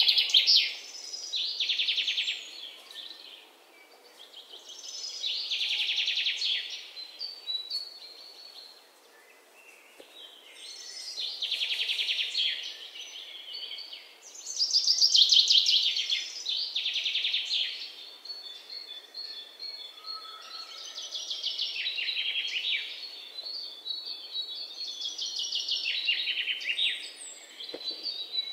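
Songbird singing: short, rapid trilled phrases about a second or two long, repeated every few seconds, with fainter chirps between them.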